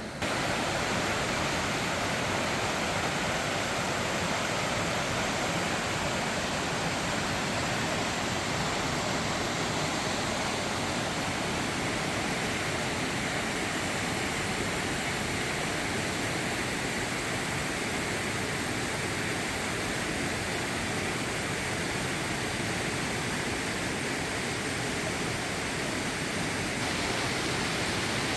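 Mountain stream water rushing and splashing over rocks, a steady, even rush.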